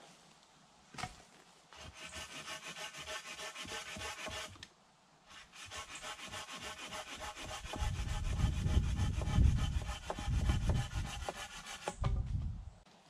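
Hand tool rasping on a wooden pole in quick, even strokes, stopping briefly about a third of the way in and then going on; heavier knocks and thuds join in near the end.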